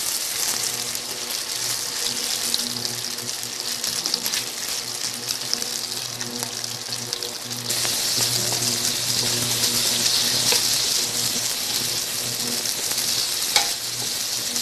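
Sliced beef sizzling as it stir-fries in a nonstick pan, stirred with a wooden spatula that scrapes and clicks against the pan. The sizzle gets louder about halfway through, and there is one sharper click near the end.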